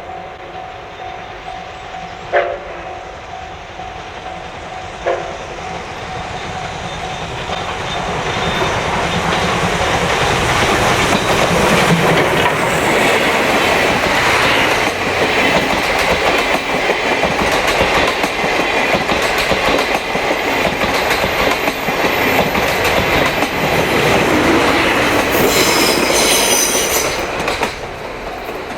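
C57 steam locomotive hauling its train, with a DE10 diesel helper, approaching and passing at close range. It grows louder from about eight seconds in into a steady, dense rumble of exhaust and rolling wheels, then drops away near the end. At the start a steady pitched tone is heard, stopping about two seconds in, and there are two sharp clicks early on.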